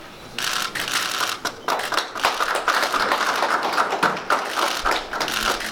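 Many camera shutters clicking rapidly and overlapping in a dense patter, starting about half a second in and stopping just before the end.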